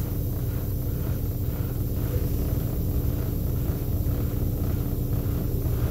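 Steady low rumble of an idling diesel truck engine, heard from inside the semi-truck cab.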